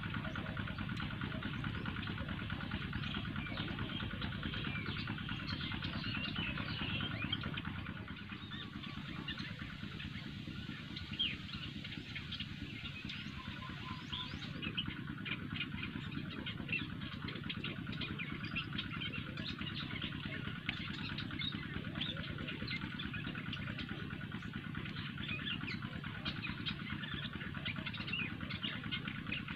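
Open-air riverbank ambience: many small birds chirping over a steady low rumble.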